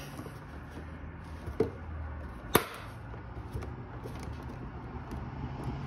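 Two sharp plastic clicks as the replacement BMW fender air-vent trim is pressed into the fender opening by hand, the second, about a second after the first, louder. A steady low hum runs underneath.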